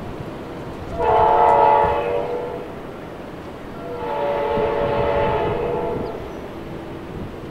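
Approaching passenger train's diesel locomotive sounding its multi-tone horn in two long blasts, the first about a second in and the second, slightly longer, about four seconds in, over the low rumble of the train.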